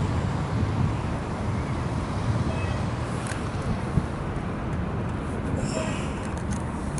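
Steady low outdoor rumble, the wind-and-traffic kind of background noise, with a couple of faint clicks about halfway through.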